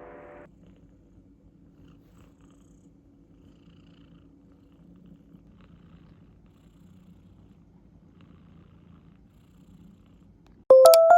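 A faint, low, uneven rumble after background music fades out. Electric-piano background music starts near the end.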